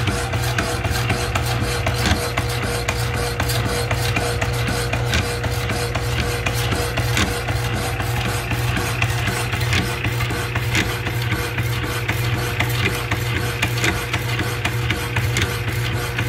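Lipe-Rollway Hand-I-Hack Model C automatic power hacksaw running, its blade rasping back and forth through a bolt in an even, fast rhythm over the steady hum of its electric motor.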